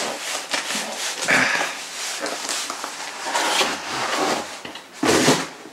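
Rustling and scraping as a CD box set's packaging is handled, with a louder burst about five seconds in.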